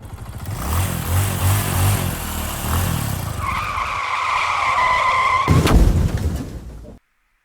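A vehicle running hard with a tyre squeal held for about two seconds, then a sudden loud thump, and the sound cuts off abruptly near the end.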